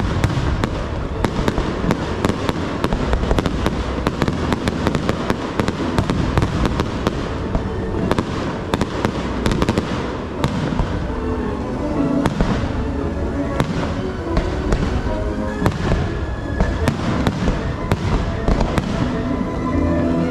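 Fireworks going off in a continuous rapid barrage of sharp bangs and crackles, with music playing underneath.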